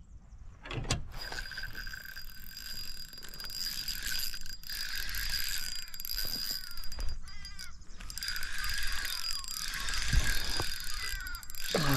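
A spinning reel being wound in against a hooked carp, with fast metallic clicking from the reel and its drag and a steady thin ringing tone. Wind rumbles on the microphone underneath.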